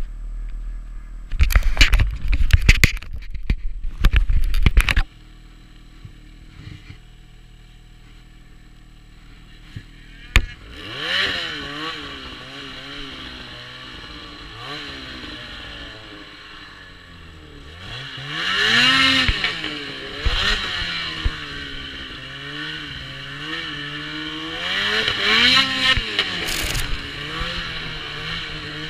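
Ski-Doo Freeride 146 snowmobile's two-stroke engine with an aftermarket GGB exhaust, revving up and falling back again and again under throttle in deep snow; the surges start about ten seconds in. The first five seconds hold loud, rough buffeting bursts.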